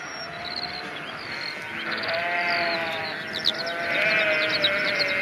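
A flock of sheep bleating, many calls overlapping into a steady chorus that grows louder about four seconds in.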